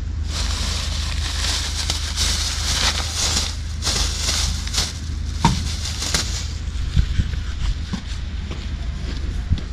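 Cloth rustling and brushing close to the microphone for about six seconds as a hoodie is tied back around the waist, then a few scattered knocks and clicks of the camera being handled, over a steady low rumble.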